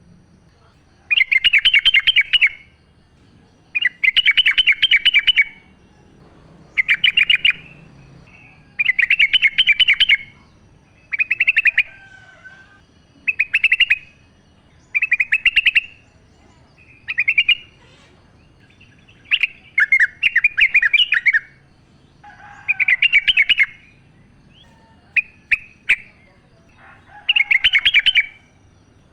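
Yellow-vented bulbul (trucukan) singing: short bubbling, chattering phrases repeated about every two seconds, with an occasional lower note between them.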